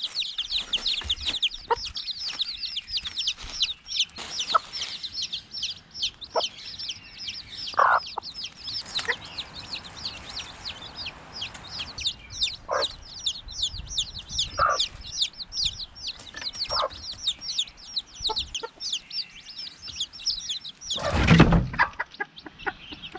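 Chicks peeping rapidly and continuously with high, falling notes, with a hen clucking every few seconds. Near the end comes a loud thud as the homemade chicken trap's wooden door drops shut.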